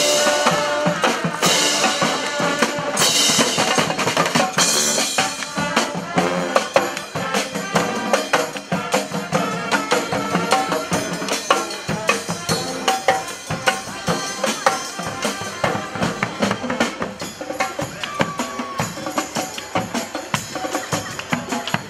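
Community street marching band playing: horns over a driving drum beat, with bright crashes in the first few seconds.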